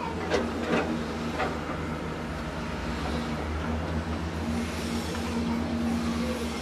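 Heavy construction machinery's diesel engine running steadily with a low rumble, with three sharp metal clanks in the first second and a half.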